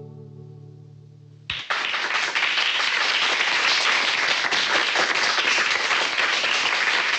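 The last chord of two acoustic guitars rings and fades away, then a crowd starts applauding suddenly about a second and a half in and keeps clapping steadily.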